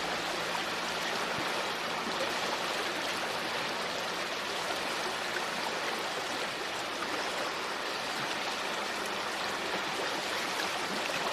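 River water flowing steadily, an even, unbroken rush of running water.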